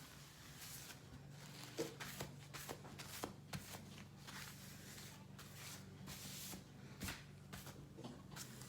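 Faint, irregular dry scraping and rustling as cornstarch is scooped and worked into the slime mixture, over a steady low hum.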